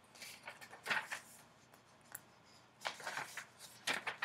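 Faint, scattered rustling and handling noises close to the microphone, in a few short bursts, with an occasional soft click.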